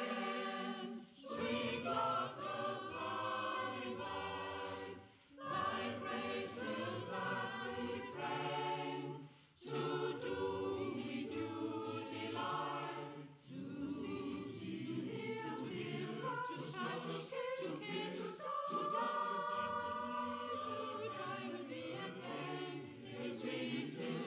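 Mixed choir of men's and women's voices singing together in sustained phrases, with short breaks between phrases about every four seconds in the first half.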